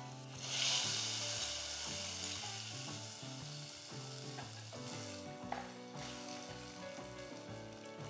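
Hot ghee with fried nuts and raisins poured into milky payasam, sizzling sharply about half a second in and dying away slowly over the following seconds, while a spatula stirs it through.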